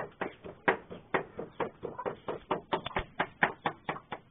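Wooden pestle pounding chilies and herbs in a stone mortar: a steady run of quick dull knocks, about five strokes a second.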